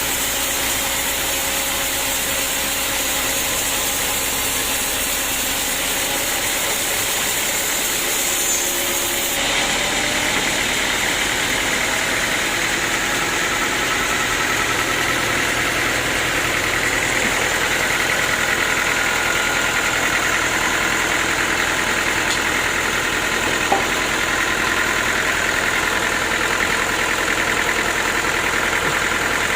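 Sawmill machinery with its engine running steadily. The sound changes abruptly about a third of the way through, and there is one sharp click near the end.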